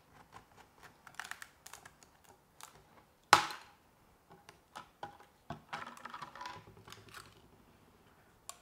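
A cured carbon fibre part being pried out of a fibreglass mould with wooden sticks and a blade: scattered light clicks, scrapes and crackles, with one sharp crack about three seconds in.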